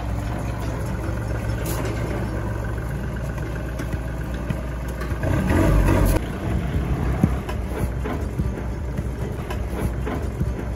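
An engine running steadily with a low rumble, swelling loudest about five to six seconds in, followed by a few sharp knocks.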